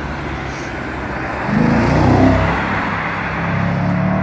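Audi RS5 accelerating out of a roundabout: the engine note swells and rises about a second and a half in, eases, then pulls again near the end, over the hum of surrounding traffic.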